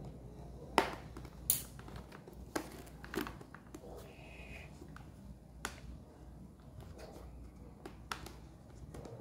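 Irregular sharp clicks and taps from hands working on a motorcycle helmet while fitting intercom and microphone parts into it, about six louder clicks in all, with a brief high squeak a little past four seconds in.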